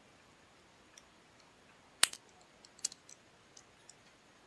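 Sharp clicks and ticks from the sealed cap of a small whisky bottle being handled and twisted between the fingers: one loud click about two seconds in, another a little before three seconds, and a few softer ticks.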